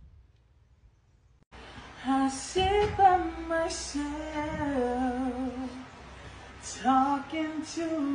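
A woman singing unaccompanied, a held and wavering melody that starts about a second and a half in after a near-silent moment.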